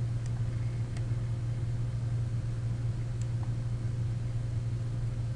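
Steady low hum of the recording setup with faint hiss, and a few faint clicks, likely from the computer mouse as the map is moved.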